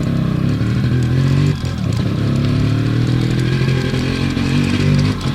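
Yamaha RX 135's two-stroke single-cylinder engine running under riding; the note drops briefly about one and a half seconds in, then rises steadily as the bike accelerates.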